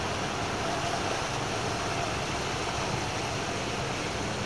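Steady rushing noise of a strong outgoing tidal current pouring through the inlet, under the low steady hum of a small motorboat's outboard engine pushing against the current.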